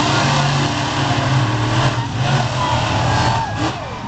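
Monster trucks' supercharged V8 engines running hard at full throttle during a side-by-side race, the engine pitch rising and falling as they rev.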